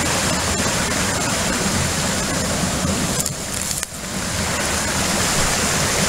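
Creek water rushing and cascading over boulders, a steady rush that dips briefly a little past halfway.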